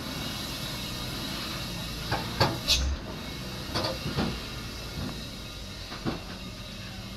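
Loaded Hino dump truck running slowly with a steady low engine hum, its body giving a handful of knocks and clanks, mostly between about two and four and a half seconds in, with one more near six seconds.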